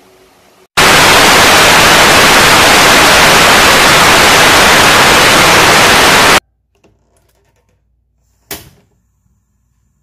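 Loud television static hiss that starts about a second in and cuts off suddenly about six seconds in, followed by near quiet and one brief burst of noise a couple of seconds later.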